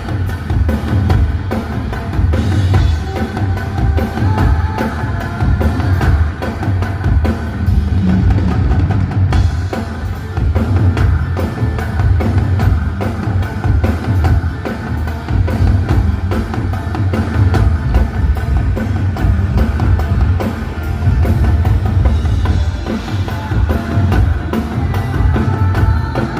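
Live band music during a concert sound check, with a drum kit to the fore: a heavy, steady bass drum and snare hits over a thick bass.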